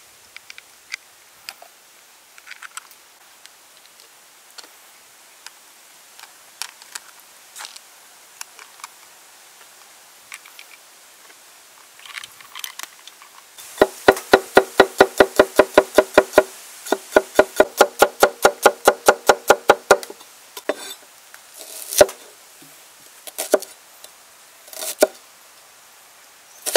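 Faint clicks of cockle shells being set into a clay pot, then a cleaver chopping garlic on a wooden board in a fast, even run of about five ringing knocks a second for some six seconds. A few single cuts through a red onion follow.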